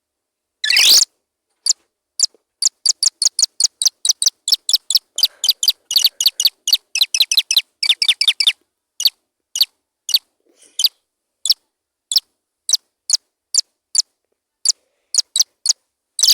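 A rapid series of short, high, bird-like chirps with silence between them, crowding to about four or five a second in the middle and then thinning out to a couple a second.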